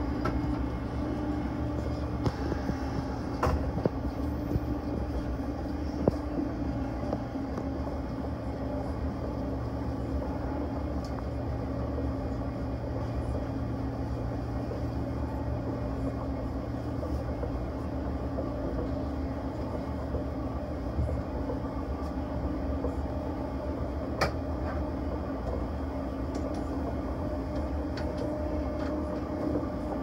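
Vitória a Minas passenger train running along the track, heard from on board: a steady rumble with a constant hum, broken by a few sharp clicks, one about three and a half seconds in and another about three-quarters through.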